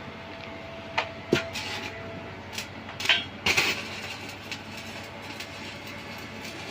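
Steady background machine noise, broken by a handful of short sharp knocks in the first few seconds.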